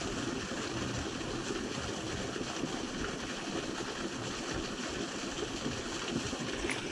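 River water rushing over a small spill, a steady, even rush of flowing water.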